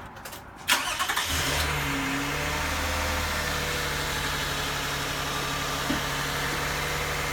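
A car engine starts with a short crank about a second in and catches, then idles steadily. This is the good car running to send charge through jumper cables to a dead battery.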